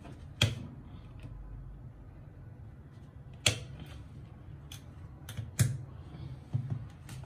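A screwdriver tip clicking and tapping against the plastic top fitting of a water purifier filter cartridge: a handful of sharp, irregular plastic clicks, the loudest three spread a few seconds apart.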